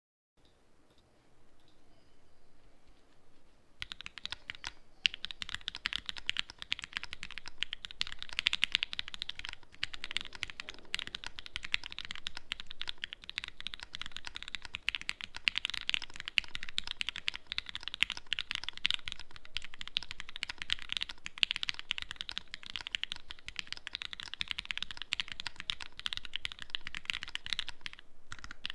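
Fast, continuous typing on a mechanical keyboard with linear Gateron Black Ink switches, lubed with Krytox 205g0 and filmed, on a carbon fiber plate under GMK keycaps. The typing starts about four seconds in, after a few faint sounds.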